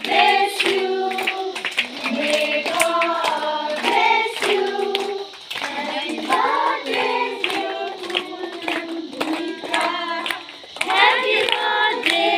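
A group of schoolchildren singing a song together, clapping their hands along in time.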